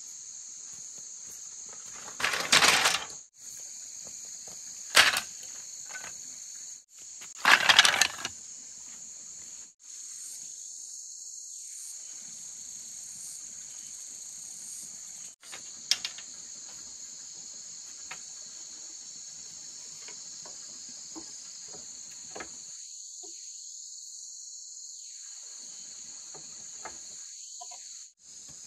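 Steady high-pitched chorus of insects, with three loud clattering knocks in the first eight seconds and a few light clicks later on.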